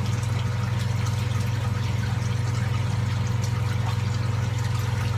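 Steady low machine hum with a faint hiss behind it, unchanging throughout.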